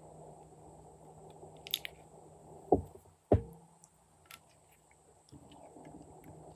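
Clear slime being stirred and folded with a silicone spatula in a glass dish: soft squelching, with two loud wet pops about half a second apart near the middle.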